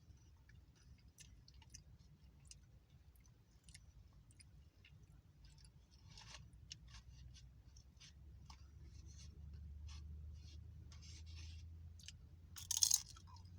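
Close-up chewing and crunching of tortilla chips from a Nachos BellGrande, in scattered short crackles, with a louder crackle near the end.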